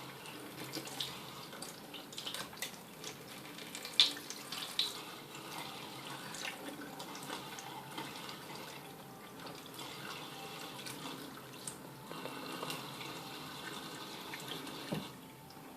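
Automatic sensor tap running into a bathroom sink, the stream broken by sharp, irregular splashes and drips as a cat drinks from it. The water cuts off near the end.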